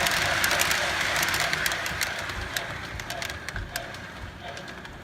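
O scale Berkshire steam locomotive model running on track: the tender's sound unit chuffs in an even beat and the wheels click over the rail joints. Both fade steadily as the train moves away.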